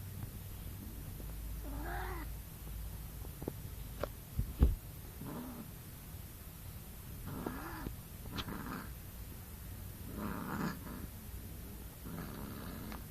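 Persian cat yowling during mating: about six short, wavering calls a second or two apart, with a few sharp knocks and a loud thump about four and a half seconds in.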